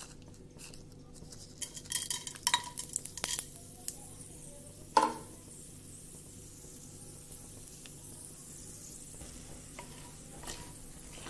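Whole peppercorns, cinnamon sticks and cloves tipped into hot oil in a wok, frying with a faint crackling sizzle, with scattered clicks of spices and a wooden spatula against the pan. There is one louder ringing knock about five seconds in.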